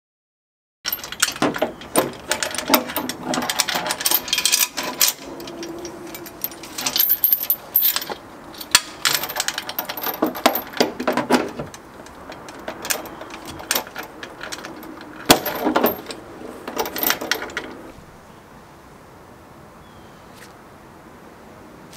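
Zinc-plated steel chain clinking and jingling in irregular bursts as it is handled and clipped onto a boat trailer's winch stand. It starts about a second in and stops about eighteen seconds in.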